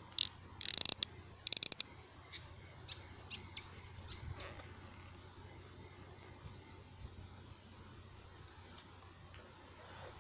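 Spinning fishing reel cranked in short, rapid clicking spurts during the first two seconds as a hooked giant freshwater prawn is reeled up, then a few single light clicks. A steady high insect drone runs underneath, with two brief falling bird chirps about seven and eight seconds in.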